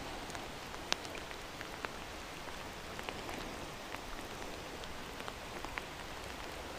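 Steady rain falling on a lake's surface, with many individual drops ticking sharply close by; one tick about a second in is louder than the rest.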